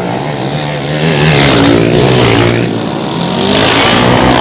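Racing underbone motorcycles passing at high revs, the engine sound swelling twice as bikes go by, about a second in and again near the end, with the engine pitch sliding as they pass.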